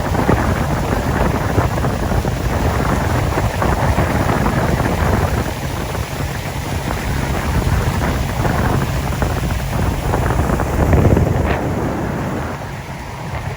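Wind buffeting the microphone over a boat motor running steadily underway.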